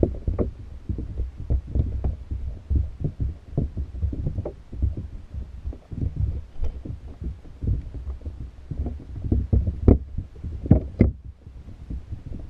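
Underwater sound picked up through a GoPro's waterproof housing inside a submerged fish trap: a dense, irregular run of muffled low thuds and knocks, with a few sharper clicks near the end.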